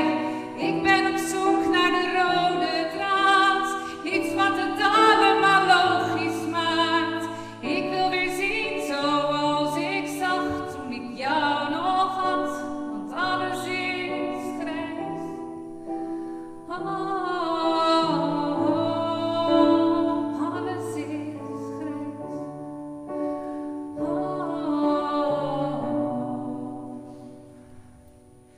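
A woman singing a slow song solo over a sustained instrumental accompaniment, the song dying away near the end.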